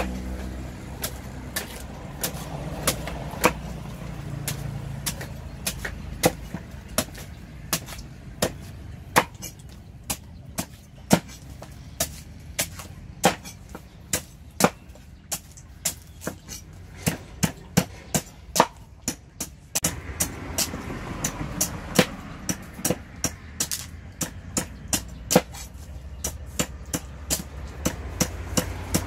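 Long knife chopping and shaving the husk off a young green coconut against a wooden chopping block: sharp, irregular chops about one or two a second, over a low traffic rumble.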